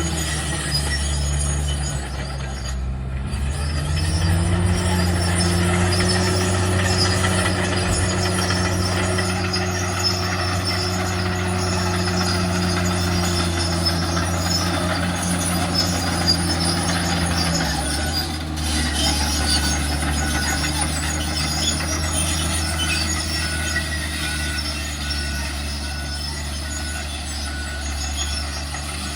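Heavy diesel dump truck engine running. It dips briefly, then revs up about 4 seconds in and holds high revs, and drops back to a lower speed a little past halfway. A hiss with metallic squeals sits over the engine throughout.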